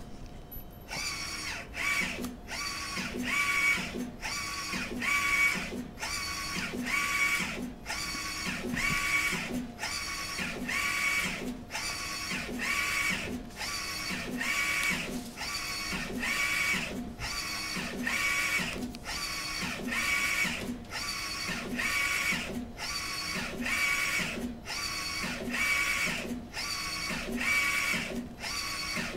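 Direct-to-garment textile inkjet printer at work: the print-head carriage shuttles back and forth over a T-shirt on the platen. Its drive makes a rhythmic motor whine, pass after pass, with a short break at each reversal.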